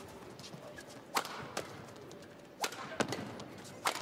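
Badminton rackets striking a feather shuttlecock during a doubles rally: a series of sharp hits about a second apart.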